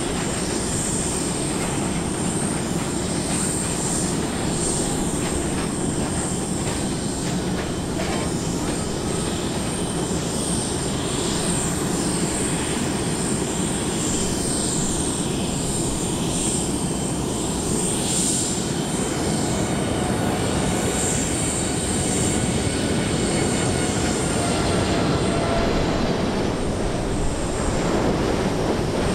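Jet engines of a four-engine Boeing 747 freighter on final approach, running as a steady noise with sweeping tones as the aircraft draws near. The noise grows a little louder near the end as the aircraft flares just above the runway.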